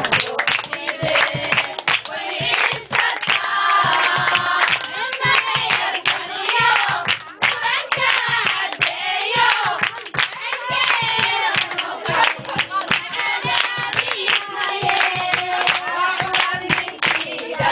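A group of women singing together with steady rhythmic hand clapping, a call-and-response style dance song.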